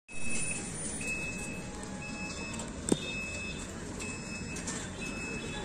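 Street ambience: a low steady traffic hum, with a faint high beep repeating about once a second and a single short knock about halfway through.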